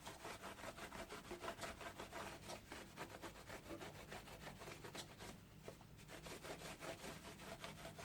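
A clean rag wiping a new brake disc in quick, repeated rubbing strokes, cleaning off its protective oil film.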